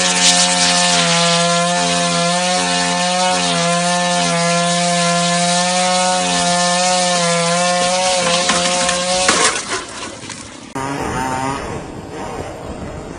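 Chainsaw running at a steady high speed, cutting wood, for about nine seconds, then stopping. After a cut, a quieter, lower-pitched engine sound follows briefly.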